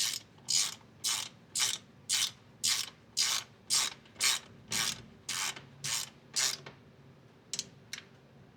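Hand ratchet wrench clicking in even strokes, about two a second, driving in a frame slider bolt. The strokes stop about two seconds before the end, followed by two faint clicks.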